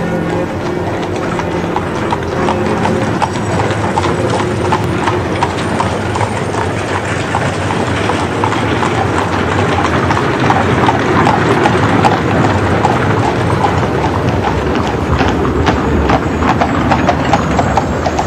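Horses' hooves clip-clopping as horse-drawn carriages pass: a steady stream of hoof strikes over street noise.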